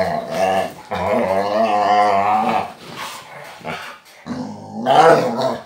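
Dog growling in play in several wavering, rumbling bouts, the longest lasting about two seconds from about a second in, and another near the end: the excited grumbling of a dog just out of the shower, rolling and rubbing itself dry.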